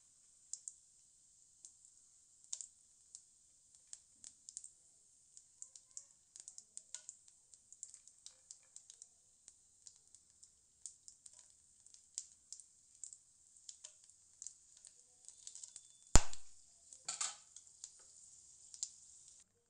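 Cumin seeds crackling and sizzling in hot oil in a stainless steel kadai: a faint high hiss with many small irregular pops. About sixteen seconds in there is one loud sharp knock against the steel pan, followed by a smaller clatter.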